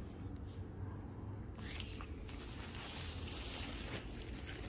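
Rustling of a large template sheet being lifted off foam mattress pieces, starting about a second and a half in, over a steady low rumble.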